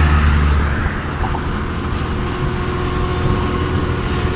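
Honda Activa scooter riding along a road at speed, its engine running under steady wind noise on the microphone, with a heavier low buffet of wind in the first second.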